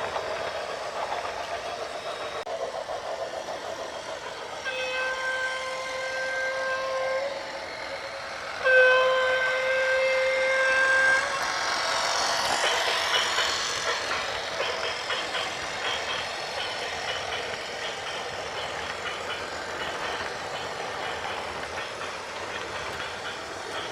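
Two long horn blasts, each about two and a half seconds at one steady pitch, over the continuous noise of a moving heavy vehicle. A hissing swell follows a few seconds later.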